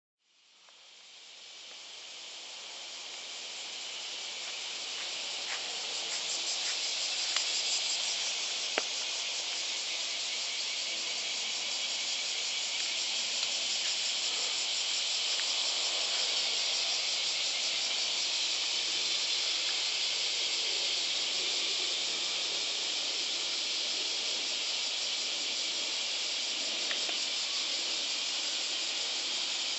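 Chorus of cicadas: a steady high buzz that fades in over the first few seconds, with a few faint ticks.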